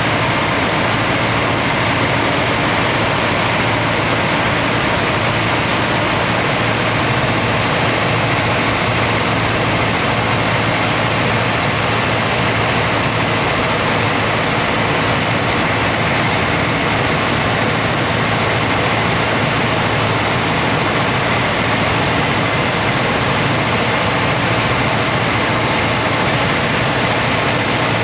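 Aeronca 7AC Champion's four-cylinder air-cooled engine and propeller running steadily in cruise flight, heard from inside the cockpit with a constant rush of air over the airframe.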